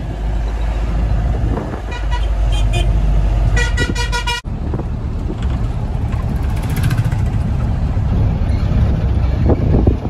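Engine rumble and road noise inside a moving passenger van. A vehicle horn toots a few short times about two seconds in, then sounds one longer honk that cuts off suddenly just before halfway.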